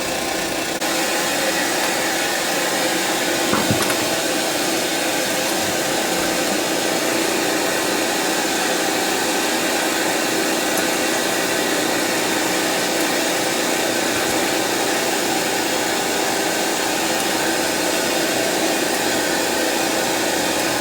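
Steady loud hiss from the audio output of a Sony EVS-7000 Hi8 video deck, getting a little louder about a second in. It is the deck's audio noise fault, louder with the bottom panel removed, as if something is being interfered with; the fault was traced to a bad capacitor in the audio circuit.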